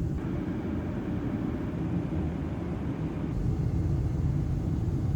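Steady low rumble of an airliner's cabin in flight.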